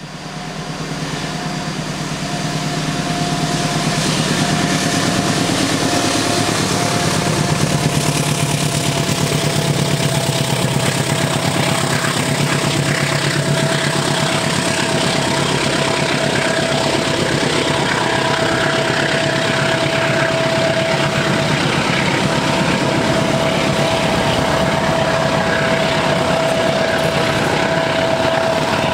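Diesel locomotive hauling a passenger train along a curving track, its engine and the rolling of the coaches growing louder over the first few seconds and then running steadily. A steady high whine runs alongside and grows stronger near the end.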